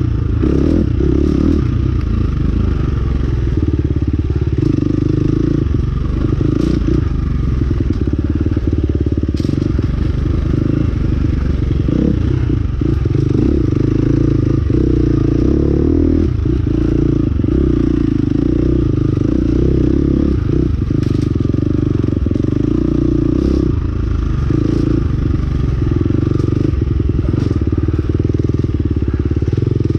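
A ridden motor vehicle running steadily at a constant set speed: a loud, even drone with scattered short clicks and knocks.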